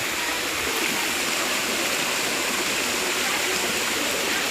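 Tiered waterfall's water pouring and splashing, a steady rush.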